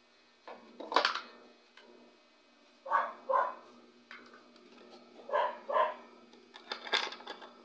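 A dog barking a few times in short barks, two of them coming in quick pairs.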